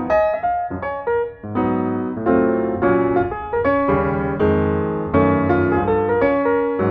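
Background piano music, notes and chords changing several times a second.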